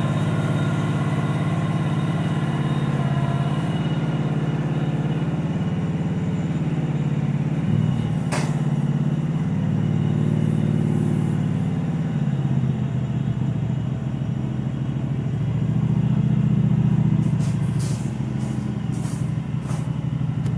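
Troy-Bilt 13039 garden tractor's engine running as it is driven slowly forward, its note swelling twice. A single sharp click about eight seconds in, and a few knocks near the end as a hand handles the phone.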